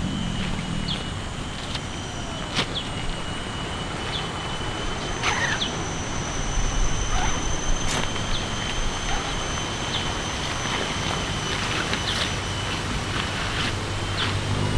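Riverside ambience: the steady rush of a shallow river, with insects' thin, steady high whine and scattered short bird chirps.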